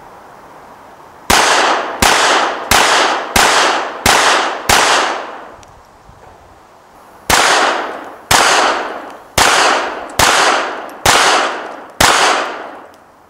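Small Beretta Model 21A pocket pistol fired rapidly: a string of six shots about one and a half a second, a pause, then a second string of six at about one a second. Each shot is a sharp crack that trails off in echo.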